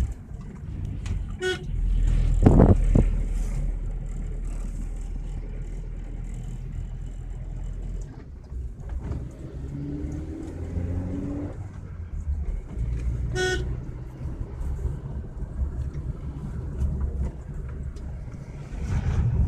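Car driving uphill heard from inside the cabin: a steady low engine and road rumble, with two short horn toots, one about a second and a half in and another about thirteen seconds in, and a thump a little after the first toot.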